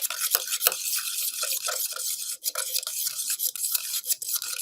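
Plastic spoon stirring and scraping around a plastic cup, mixing baking soda into contact solution, in quick repeated strokes.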